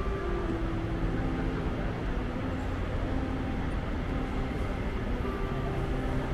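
Steady hubbub of a busy airport departures hall: a low rumble with many indistinct voices overlapping.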